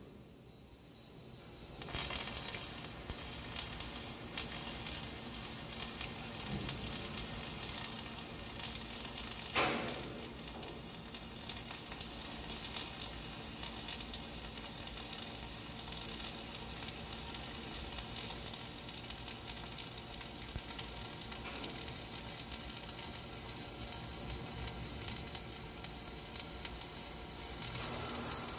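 Flux-cored arc welding on carbon steel plate: the arc strikes about two seconds in and then runs with a steady sizzling crackle, with one brief louder burst about ten seconds in.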